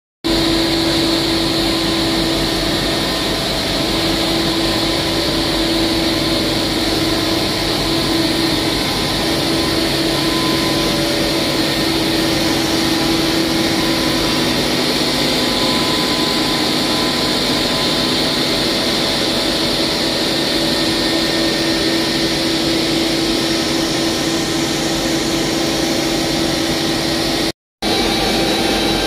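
Polyester POY spinning line machinery running: a steady industrial hum with a constant mid-pitched tone over a broad, airy hiss. The sound cuts out for an instant near the end and resumes unchanged.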